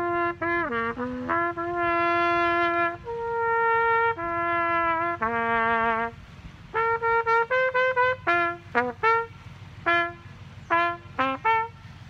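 Trumpet playing a tune: a few long held notes, then a run of shorter notes with brief gaps between them in the second half.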